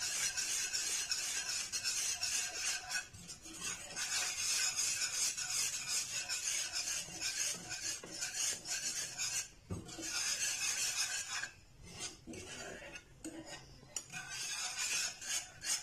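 Wire whisk stirring a thickening white sauce of flour roux and milk in a nonstick frying pan: quick, continuous scraping and swishing strokes against the pan, with a short lull about three seconds in and a quieter stretch past the middle.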